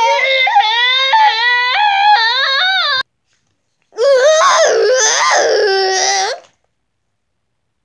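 A child's high-pitched, wavering crying wail that cuts off abruptly about three seconds in, followed by a second, shakier wail lasting a couple of seconds.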